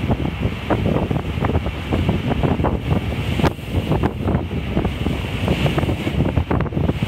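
Strong wind buffeting the microphone at the bow of a boat under way, over the rush of the sea against the hull.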